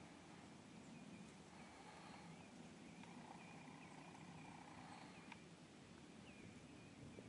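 Near silence: faint outdoor quiet with a low background hum and scattered soft, short high chirps.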